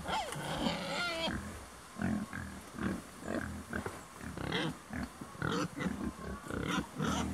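Chickens clucking: a run of short, low calls, about two a second, with a higher warbling call in the first second or so.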